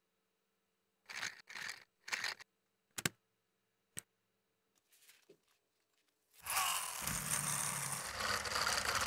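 Lego Technic plastic parts rustling and clicking into place, with a few short scrapes and two sharp clicks. From about six and a half seconds in, a loud steady whirring rush from the flywheel vehicle's wheels and spinning flywheel as it runs across the floor.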